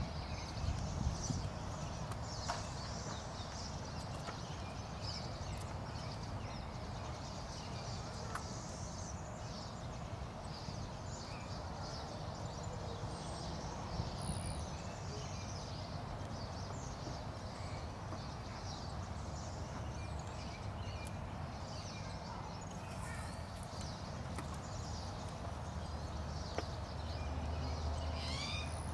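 Outdoor ambience: a steady low wind rumble on the microphone that grows stronger near the end, with scattered faint high chirping and light clicks and taps as a grey squirrel moves about on a metal tray.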